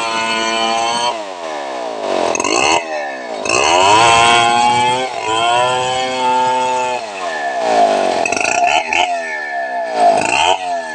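Home-built chainsaw modelled on the Stihl 070, ripping a medang log lengthwise into boards. It runs steadily under load at first; from about a second in, its engine speed drops and climbs again several times.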